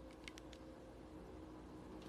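Near silence: faint room tone with a low hum and a few faint small clicks in the first half second.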